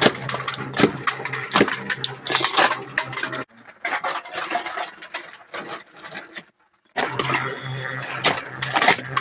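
Homemade can crusher running: an electric motor hums steadily while its spinning lawn-mower tires grab aluminium cans, with repeated sharp metallic clanks and crunches as cans are fed through and crushed. The machine sound drops away about three and a half seconds in and comes back around seven seconds.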